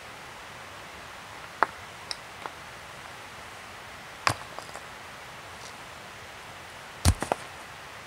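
Rocks knocking against rocks as stones are set in place on a fire pit ring: a few scattered sharp clacks, then the loudest, a quick run of three knocks about seven seconds in.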